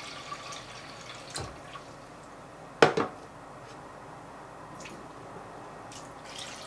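Water being poured from a measuring jug into a pot of chicken bones and meat, splashing and dripping, with a sharp double knock near the middle.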